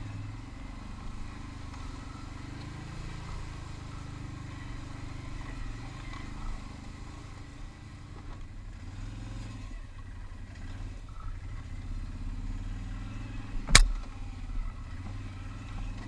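ATV engine running at low speed, easing off and picking up again as it picks its way over a rough trail, with one sharp knock shortly before the end.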